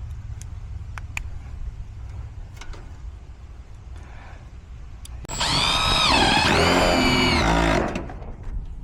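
A power drill runs for about two and a half seconds, its pitch dropping partway through and then holding, over a steady low rumble.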